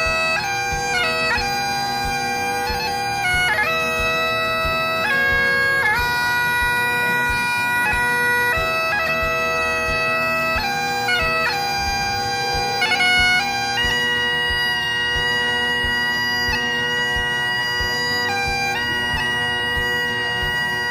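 Bagpipes played live: a melody on the chanter, moving to a new note every second or two, over steady, unbroken drones.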